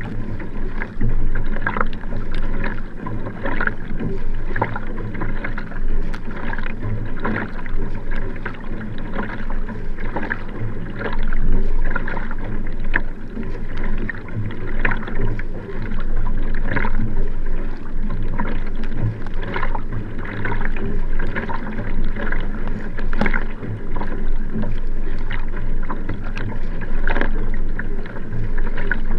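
Nelo Vanquish sprint kayak under hard racing strokes: the paddle blades catch and splash in a quick, even rhythm, alternating sides, over water rushing along the hull and a steady low rumble.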